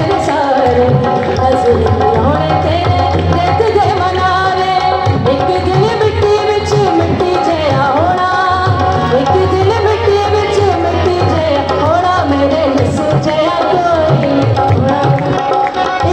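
Devotional Punjabi song in full flow: harmonium with tabla and dholak drumming, and a sung melody in long bending notes without clear words.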